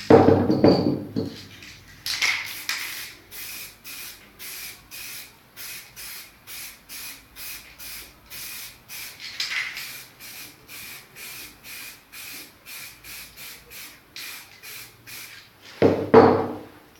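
Aerosol spray paint cans hissing in quick, even short bursts, about two or three a second, as paint is misted onto a canvas. Louder handling noise at the start and about a second before the end.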